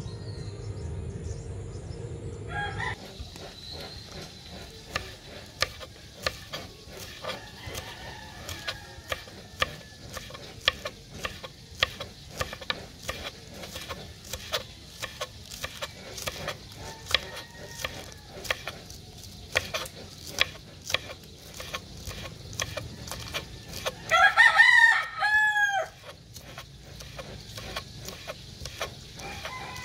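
A knife chopping green onions on a wooden board, a steady run of sharp knocks. About three-quarters of the way through, a rooster crows once, loudly, over the chopping.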